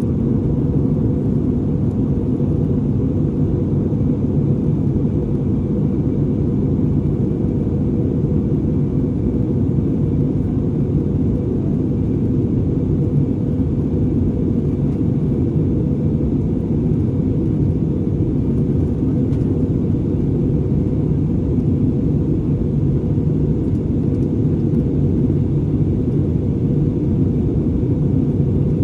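Steady low rumble of an Airbus A320neo aircraft, holding an even level with no rise or fall.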